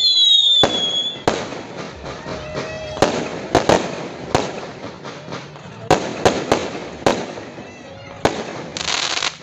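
Aerial fireworks going off: a string of sharp bangs and crackling bursts, with several falling whistles in the first second and a dense crackle near the end.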